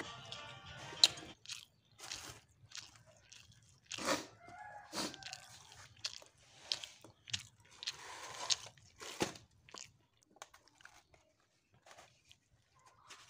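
Eating charcoal-grilled fish by hand: irregular crunches and crackles as fingers pull apart the charred skin and flesh on paper, along with chewing.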